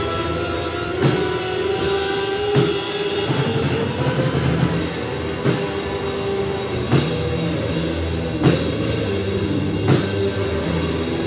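Live rock duo playing an instrumental passage: a drum kit and an amplified acoustic guitar run through effects pedals. Loud accented drum hits come about every second and a half under the guitar's sustained chords.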